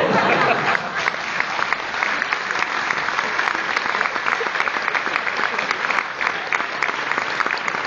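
Theatre audience applauding: many hands clapping together in a steady, dense patter.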